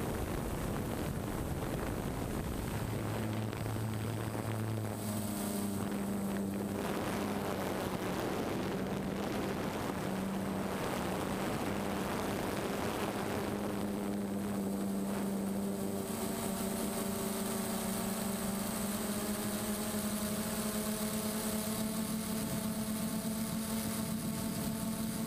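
DJI Phantom quadcopter's motors and propellers running steadily in flight, heard from the onboard camera with a constant rush of wind and prop wash. The motor drone changes pitch about five seconds in and again around sixteen seconds in.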